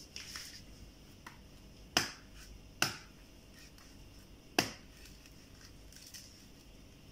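Large kitchen knife chopping into a coconut's fibrous husk: three sharp chops, the first two close together and the third about two seconds later, with a few lighter knife taps between.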